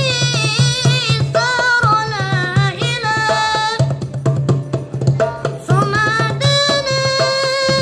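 Devotional song: a voice singing a drawn-out, ornamented melody over a steady beat of hand drums. The melody breaks off for about a second around the middle while the drums keep going.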